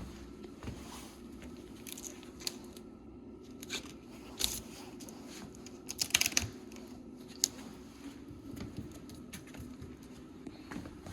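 Scattered crinkling rustles and sharp clicks over a steady low hum, with a cluster of louder crackles about six seconds in.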